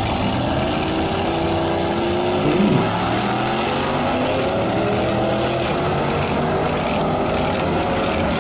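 A gasser drag car's engine accelerating hard down the drag strip, its pitch climbing after the launch, dipping once about three seconds in, then climbing again.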